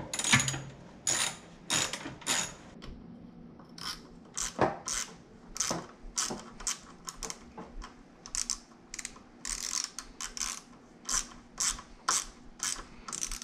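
Hand socket ratchet clicking in quick runs of short strokes as bolts at a dirt bike's handlebars are tightened.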